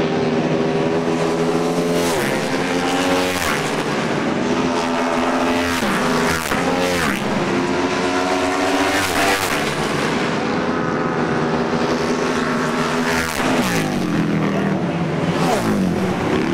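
Flat-track racing motorcycles running hard on a dirt oval. The engine pitch holds high, then drops and swoops several times as bikes roll off and go past.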